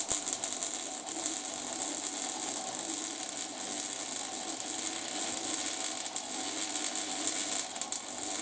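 Electric arc welder laying a weld bead: a steady, dense crackling hiss.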